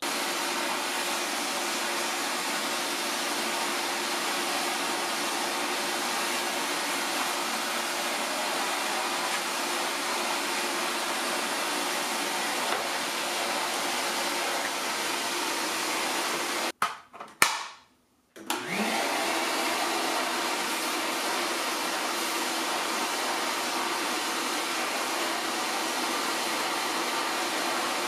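Vacmaster VQ607SFD stainless steel wet/dry shop vacuum running steadily as its floor nozzle is pushed over a carpet runner. The sound drops out for about a second and a half roughly two-thirds of the way through, then comes back.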